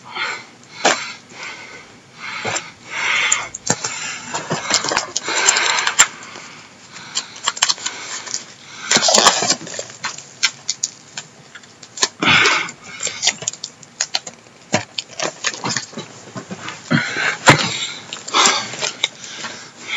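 Packaging being worked open by hand without scissors: irregular rustling, crinkling and scraping in bursts of about a second, broken by short clicks.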